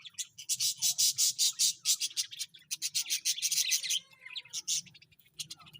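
Budgerigars chirping and squawking in a rapid, harsh chatter, densely for about four seconds and then more sparsely.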